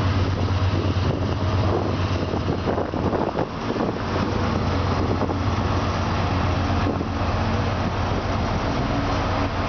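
Class 70 diesel-electric freight locomotive running past, its engine giving a steady low hum.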